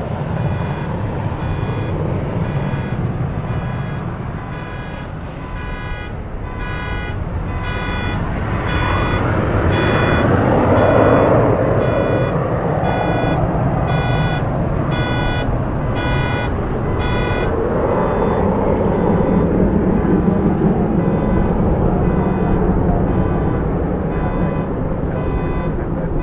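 Jet noise from a departing Boeing 737-200's two Pratt & Whitney JT8D-17 engines, a loud rumble that swells to a peak about halfway through. Over it a car alarm, set off by the jet noise, beeps a little more than once a second, growing fainter in the last third.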